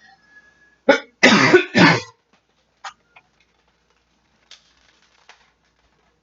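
A person coughing three times in quick succession about a second in, followed by a few faint clicks.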